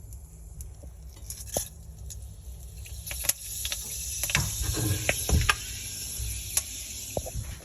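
Kitchen clatter while cooking: scattered clicks and knocks, busiest in the middle, over a steady high hiss and a low hum.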